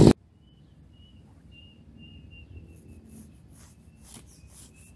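A brush cutter's engine is cut off abruptly at the very start, leaving quiet outdoor background with a faint, thin, high chirp repeating every fraction of a second. Soft rustling and scraping comes from wooden slats being handled, mostly in the second half.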